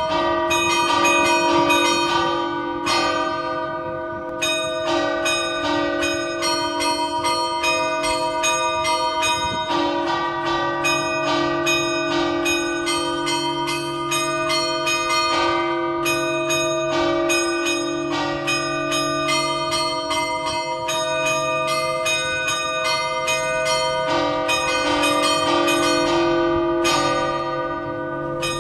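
Three fixed tower bells rung festively, struck in rapid, irregular succession so that their ringing tones overlap without pause. The large hour bell, tuned to D-flat (cast by Pasquale Mazzola, 1878), sounds beneath two small bells in C and D (Trebino, 2015); the three are not tuned to a scale.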